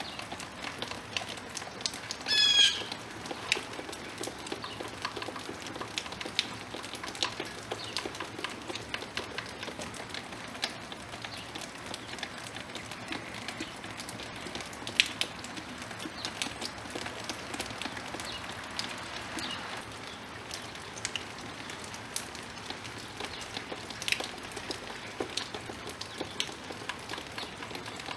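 Yard bird giving one short, harsh call about two seconds in, over a steady patter of many small clicks and ticks.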